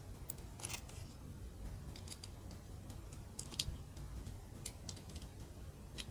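Mini plastic building bricks clicking and tapping as they are handled and pressed together: scattered light clicks, the loudest about three and a half seconds in.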